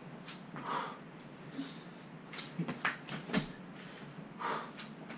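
People doing burpees: hands and feet thudding on the gym floor, with a cluster of quick thumps about halfway through, and two short, breathy exhales, one near the start and one near the end.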